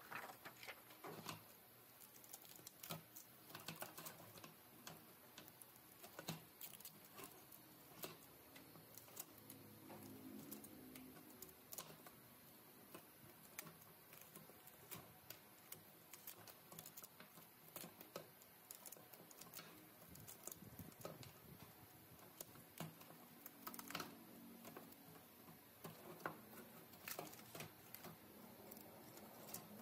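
Faint, irregular clicks, taps and scrapes of metal and plastic laptop parts (bezel frames, screen panel, circuit board) being handled and set down on a wooden table.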